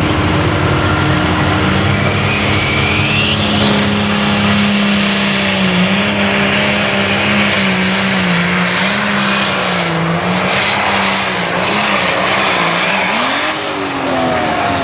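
Turbocharged diesel engine of a John Deere 6030 limited pro stock pulling tractor at full load down the pulling track, its pitch wavering as it works, with a rising turbo whine early on. Near the end the revs climb sharply, the engine going 'way upstairs'.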